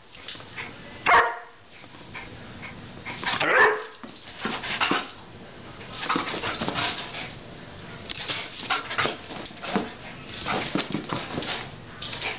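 Greyhound barking and yipping in play, with two loud barks in the first four seconds followed by a quicker, irregular run of softer yips and whines.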